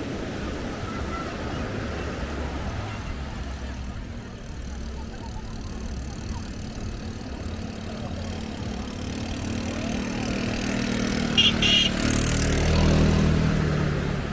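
A motor vehicle's engine running steadily, growing louder as it passes close near the end. Two short, high sounds come just before it is loudest.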